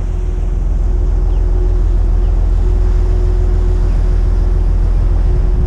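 McKinna 65 motor yacht underway: a steady, deep engine drone with a constant hum over it, mixed with wind on the microphone and water rushing past the hull.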